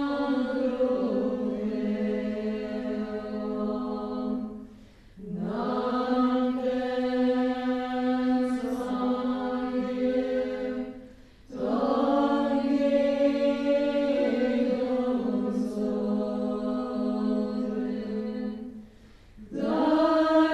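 Group of women singing a Tibetan Bön long-life prayer together as a slow chant, in long held phrases broken by a short breath pause about every six seconds.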